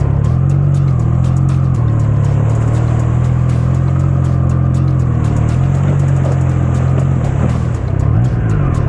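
Triumph Tiger 660 Sport's three-cylinder engine running at low speed on a dirt track, its pitch shifting slightly with the throttle and dipping and wavering about eight seconds in as the bike slows.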